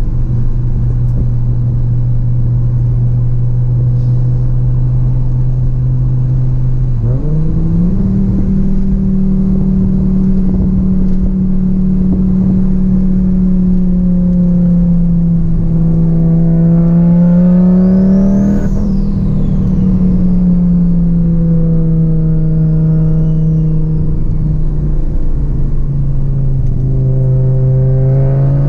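Audi UrS4's turbocharged 2.2-litre 20-valve inline-five engine heard from inside the cabin while driving. Its steady drone steps up sharply in pitch about seven seconds in, then holds at higher revs, swelling and easing off in turn. A faint high whine rises and falls near the middle.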